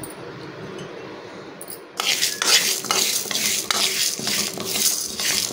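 A spatula stirring and scraping dry lentils around a metal kadai as they dry-roast: a rough, rattling scrape of grains against the pan that starts suddenly about two seconds in and keeps going.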